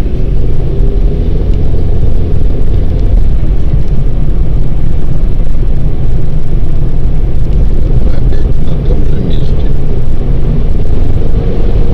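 Steady low rumble of a car being driven, tyre and engine noise heard from inside the cabin, with a faint steady hum above it.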